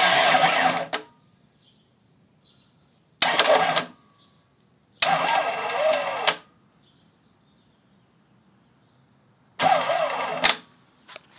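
Kubota V2203 four-cylinder diesel turned over by its electric starter in four short cranking bursts of about a second each, each opening with a sharp click as the starter engages; the engine turns over without catching.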